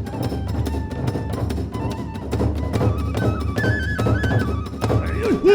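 Kagura hayashi ensemble playing: a bamboo flute carries a stepped melody over rapid drumming and clashing hand cymbals. A short swooping tone is heard near the end.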